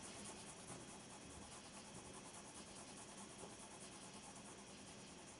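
Faint pencil scratching on sketchpad paper, in shading strokes that come and go.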